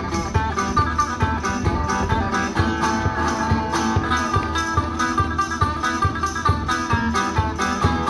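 Resonator guitar played by a busker: a steady, rhythmic country-style tune of plucked and strummed strings over a regular beat.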